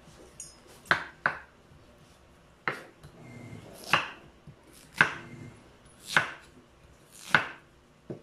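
Kitchen knife chopping through a squash onto a cutting board: about eight sharp chops, roughly one a second and unevenly spaced.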